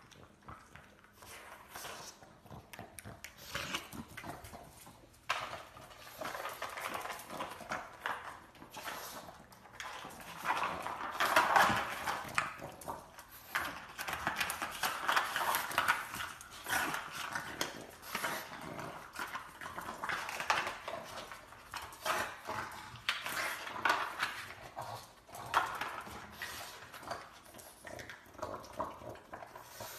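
Pug dogs digging and pawing at a quilt and a wooden floor, with dog noises, scratching and scuffing in irregular bursts. The loudest burst comes a little before halfway.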